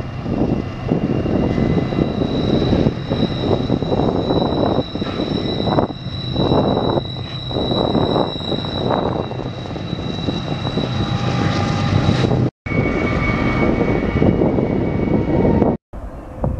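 BNSF diesel freight locomotives passing, their engines giving a loud, steady drone with a heavy low rumble and a thin high whine above it. The sound cuts out abruptly twice near the end.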